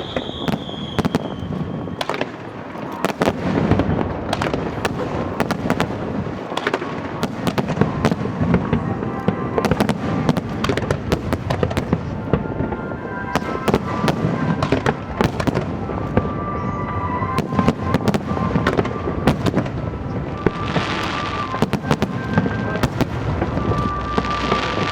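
Aerial fireworks bursting in quick succession: a dense run of bangs and crackles with no break, and music playing underneath.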